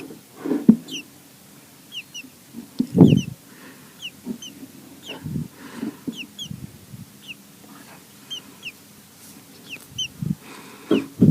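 American robins at the nest giving thin, high chirps, short single notes repeated about once or twice a second. A few low bumps come in between, the loudest about three seconds in.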